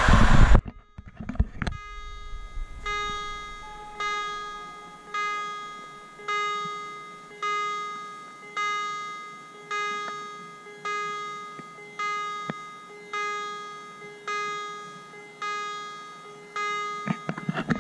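Level-crossing warning bell ringing, one ringing strike a little less than once a second, each dying away: the crossing's warning is active for an approaching train. Before it, a passing train's rush cuts off half a second in.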